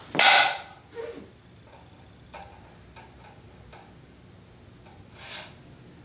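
Halves of a plastic re-breakable board being slid and snapped back together: a loud clack and scrape just after the start, then a few light clicks, and a short scrape about five seconds in.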